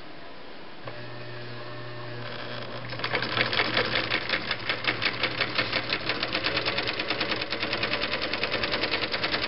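Viking (Husqvarna) Type 21 sewing machine starting up and sewing a straight stitch. A click and a steady low hum begin about a second in. From about three seconds in, the needle mechanism runs a fast, even ticking.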